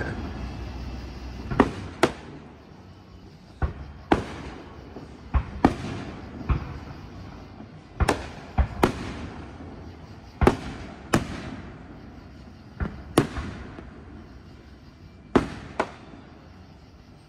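Aerial firework shells bursting overhead: about fifteen sharp reports, often in close pairs a fraction of a second apart, each trailing off in an echoing rumble.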